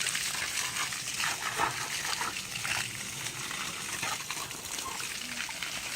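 Water spraying in a steady hiss with irregular splattering as a dog plays in the spray.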